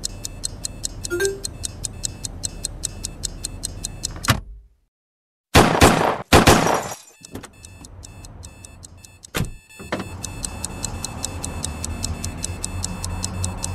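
Loud ticking of a time bomb's clock, about four ticks a second, which cuts out about four seconds in. After a second of silence come two loud crashing hits, then the ticking resumes over a low rumble.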